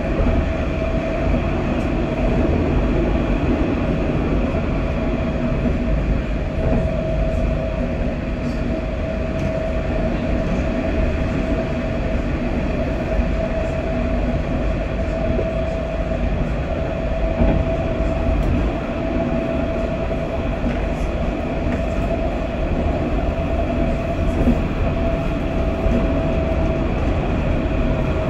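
Interior of a Luas Green Line tram running at speed between stops: a steady rumble of the wheels on the rails with a constant whine.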